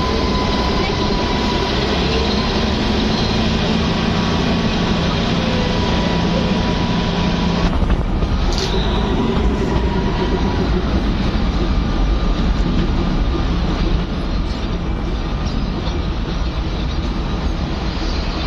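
Narrow-gauge toy train running on the Kalka–Shimla line, heard from inside the coach as a steady rumble and rattle. A thin high tone sounds over it and fades out about ten seconds in, and there is a short sharp click a little before the middle.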